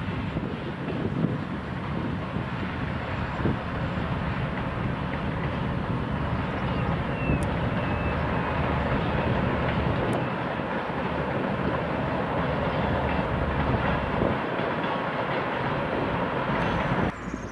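A train running past on the rails: a steady rumble and rattle of the wheels, with a brief faint squeal about seven seconds in. The sound drops off abruptly near the end.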